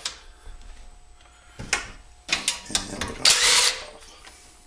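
Cordless drill/driver backing out the bolts of the recoil starter on a Predator 212cc engine. A couple of clicks come first, then two short runs of the drill about two and three seconds in, the second louder.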